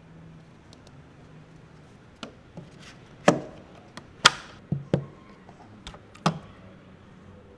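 Irregular knocks and taps, about eight of them from two seconds in to about six and a half seconds, the loudest near the middle, over a faint steady hum.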